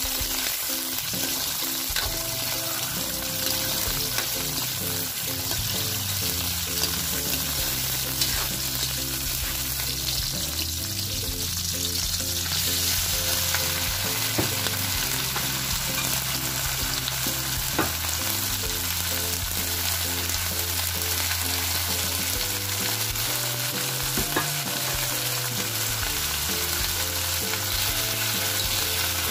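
Shrimp and cabbage sizzling steadily in a hot pan as they are stir-fried, with a few sharp clicks of the metal spatula against the pan.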